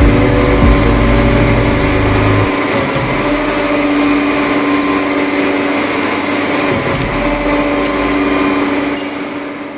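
Concrete pump machinery running with a steady whine and hum. A deep rumble drops away about two and a half seconds in, and the sound fades out near the end.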